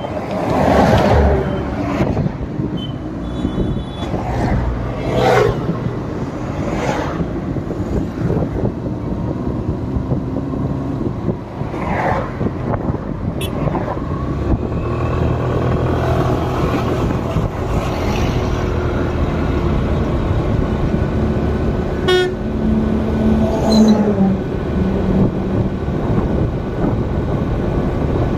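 Highway traffic noise with vehicles passing, and short horn toots now and then.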